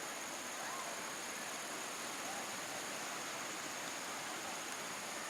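Waterfall rushing: a steady, even wash of falling water, with no change in level.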